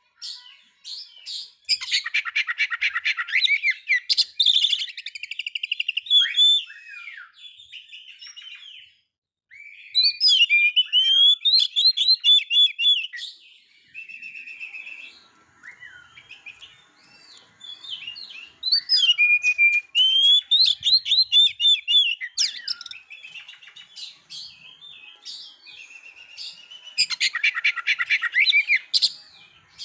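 Oriental magpie-robin singing: varied whistled and twittering phrases broken by four loud bouts of rapid rattling trills, about eight seconds apart.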